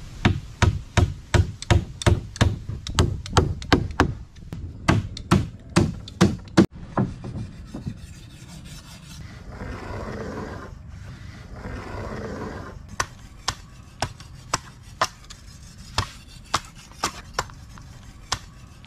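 Claw hammer driving nails into wood: a quick run of sharp blows, about three a second, then two longer rasping scrapes, then lighter, sparser hammer taps near the end.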